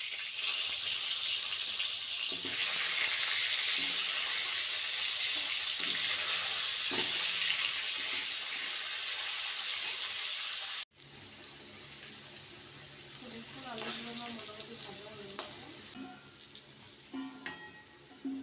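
Potato pieces shallow-frying in hot mustard oil in an aluminium kadai: a loud, steady sizzle. About eleven seconds in it cuts off suddenly, and a quieter sizzle with a few light clinks follows.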